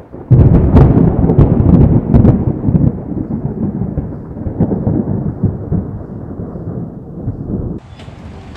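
Thunder from a lightning storm: a sudden crack with sharp crackles in the first couple of seconds, then a long rumble that slowly fades. It cuts off abruptly near the end.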